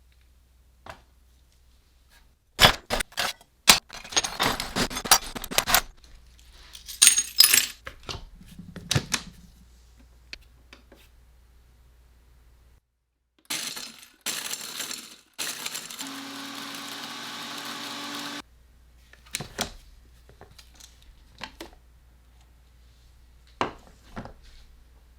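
Workshop handling noises: hard objects clattering and knocking in quick clusters. Then a small motorised tool runs steadily for a few seconds and stops suddenly, followed by a few more knocks.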